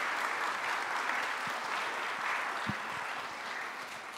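Audience applauding, a dense steady clapping from a large seated crowd that starts to die down near the end.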